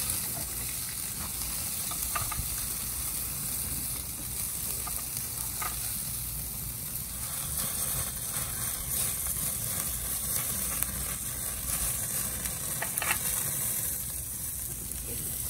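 Butter-and-herb sauce sizzling in oyster half-shells on a grill grate over a charcoal fire: a steady, crackly hiss, with a few short clicks along the way.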